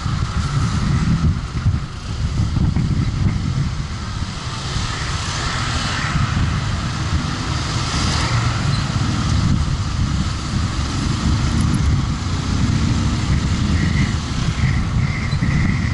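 Road noise from a moving motor vehicle in traffic: an engine running and tyres on the road, with a heavy, uneven rumble of wind buffeting the microphone.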